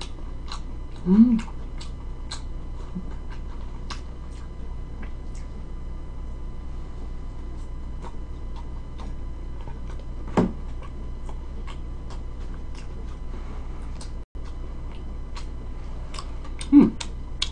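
A person chewing pizza close to the microphone, with many small wet mouth clicks and smacks. Three brief voiced hums come about a second in, around ten seconds in and near the end, over a steady low hum.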